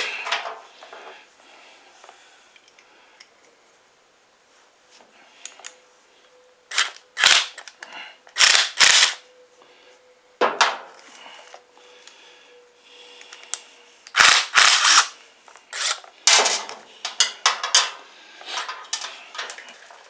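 Sharp metallic clinks and clatters of small steel nuts and hand tools being handled around the mower carburetor's mounting studs, in a dozen or so separate hits coming in two clusters.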